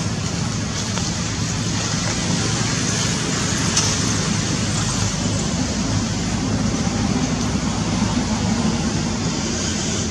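Steady road traffic noise with a low engine hum, swelling a little a couple of seconds in.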